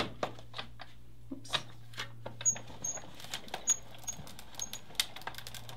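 A Sizzix hand-cranked die-cutting machine being loaded and run: clear plastic cutting plates click and tap into place, then the crank turns with a series of short, high squeaks from about two and a half seconds in, while the plates press a stack of tissue-paper layers against a flower die.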